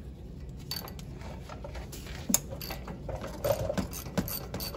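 Hand socket ratchet clicking in short, uneven strokes as a 10 mm bolt is loosened and backed out.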